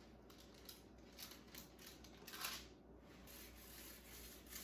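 Near silence with faint, scattered rustles and light clicks, the most noticeable about two and a half seconds in.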